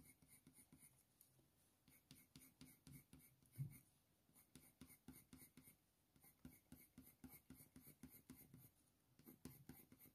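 Faint, quick scratching of a Faber-Castell Polychromos coloured pencil on hot press watercolour paper, several short feathering strokes a second with a couple of brief pauses. A soft low bump about three and a half seconds in.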